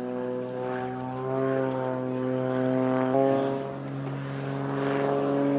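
Propeller aircraft engine droning in flight overhead, its pitch shifting slightly with a small jump about three seconds in, and growing louder near the end.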